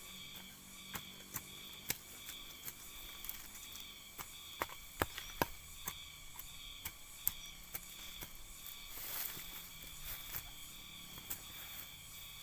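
Irregular sharp crackles and knocks of a person moving and working with a hand hoe in dry cut-grass mulch, with a cluster of louder ones about five seconds in. Insects chirr steadily behind, a high drone pulsing about twice a second.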